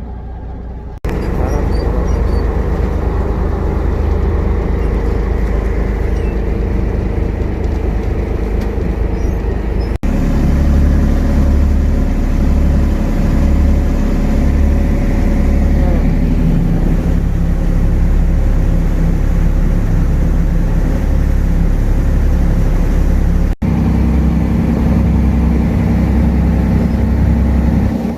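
A fishing boat's engine running steadily at speed, a loud low drone with wind and water noise over it. It breaks off sharply three times where clips are cut together.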